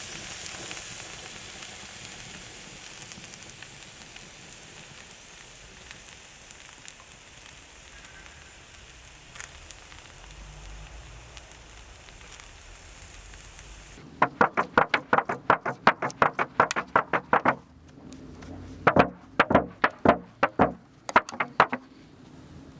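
Wood fire and embers hissing with scattered crackles. About two-thirds of the way through, the sound changes to two runs of loud, sharp, rapid clicks and knocks.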